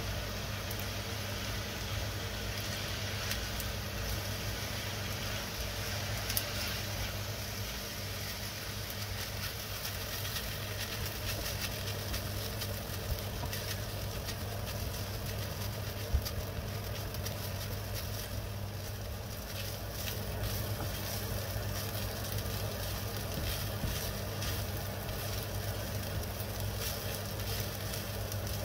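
Food frying in oil in a pan: a steady sizzle with light crackling over a constant low hum. One sharp click about sixteen seconds in.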